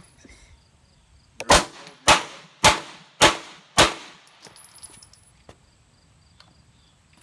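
Five semi-automatic pistol shots fired in steady succession, about two a second, each followed by a short ringing echo.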